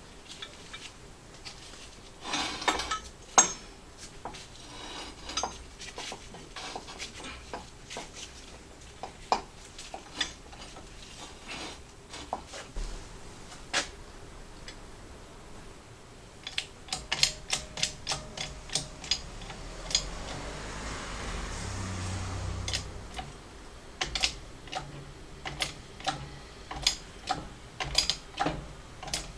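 Metal parts clinking and knocking as a crankshaft, cam timing sprocket and pressing socket are set up in a shop press. Near the end comes a run of regular clicks, about two a second, as the press ram is brought down to press the timing sprocket onto the crankshaft.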